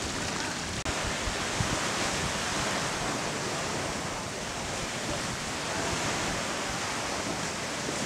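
Steady rushing noise of wind and sea surf, with wind buffeting the microphone.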